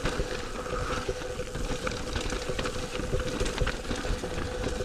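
Mountain bike rolling over rocky dirt singletrack: tyres crunching over rock and dirt and the bike rattling with frequent sharp clicks, over wind rumble on the camera's microphone and a faint steady hum.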